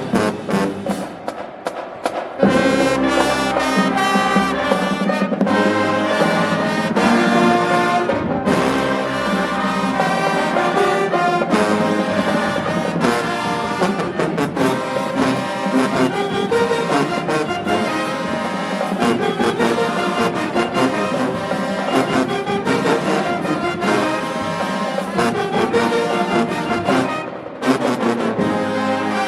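HBCU marching band playing loudly, led by its brass section. After a choppier opening, the full band comes in strong about two seconds in and plays on steadily, easing off briefly near the end.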